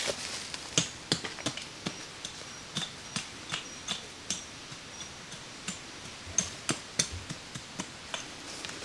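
Irregular sharp taps and knocks, one to three a second, some louder than others.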